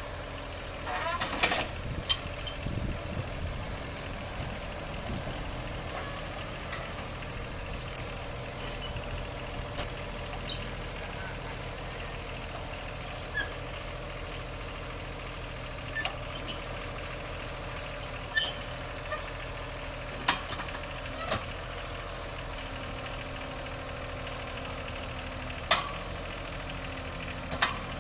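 Backhoe's diesel engine running steadily at low revs, with a few short, sharp metallic clanks scattered through.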